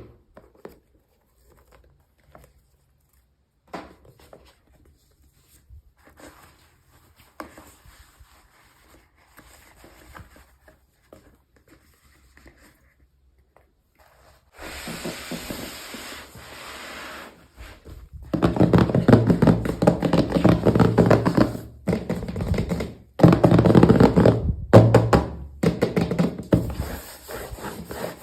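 Hands unboxing small toys: a few light taps and knocks at first, then louder, continuous rubbing and handling of the packaging through the second half, broken by short pauses.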